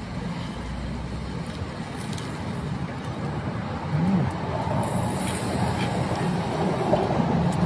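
Street traffic: motor vehicles running and passing over a steady low engine hum, getting a little louder about halfway through.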